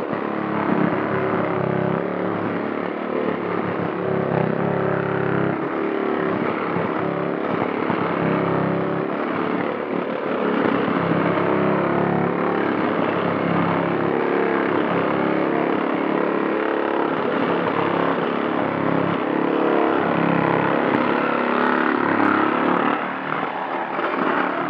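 Cordless power windshield cut-out tool running steadily with a dense mechanical buzz as its blade cuts through the urethane bead holding a BMW E36 M3's windshield. It dips briefly near the end.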